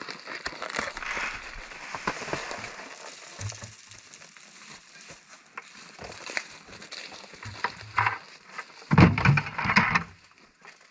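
Crinkling and rustling of bear bait being handled and dumped into a bait barrel, with a louder, heavier clatter about nine seconds in.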